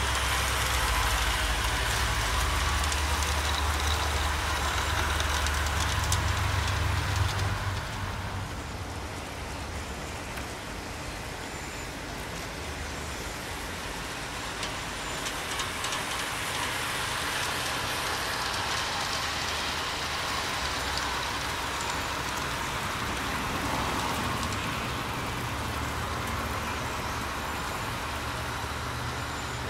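G-scale model diesel locomotive and freight cars running along garden track: a steady running noise of wheels on rail and motor, louder and heavier in the low end for about the first eight seconds, then steadier and a little quieter.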